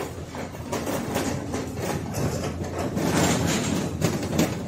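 Hyundai 16BRJ-9 electric reach truck working, a steady mechanical rattle and clatter that gets louder about three seconds in.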